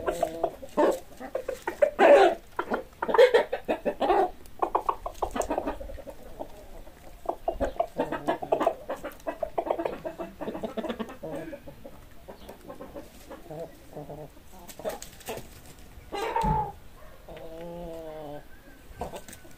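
Chickens clucking: a busy run of short clucks, loudest in the first few seconds and thinning out after, with a louder call and a longer wavering call near the end.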